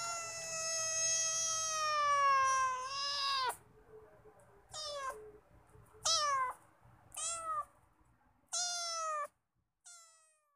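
A kitten meowing: one long meow of about three and a half seconds, then five short meows at roughly one-second intervals, each falling in pitch, the last one faint.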